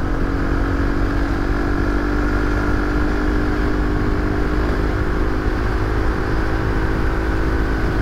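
1992 Honda Africa Twin's carbureted V-twin engine running hard at speed under heavy throttle, heard with steady wind rush over the microphone.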